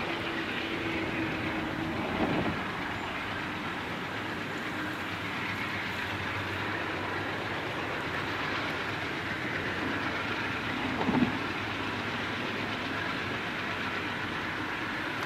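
Ex-Burlington Northern GE diesel locomotives running as they pull an ore train, a steady rumble with faint engine tones. Two brief louder knocks stand out, about two seconds in and again about eleven seconds in.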